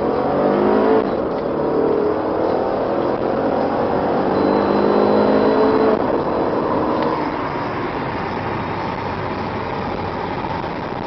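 2000 Subaru Forester S/tb's turbocharged flat-four engine under hard acceleration, heard from inside the cabin. Its pitch climbs, falls back about a second in and climbs again until about six seconds in as the automatic gearbox shifts up, then it runs steadier.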